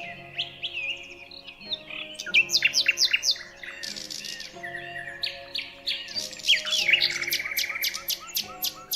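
Several songbirds chirping, with quick sweeping notes and a fast trill about seven seconds in, over soft background music of held chords.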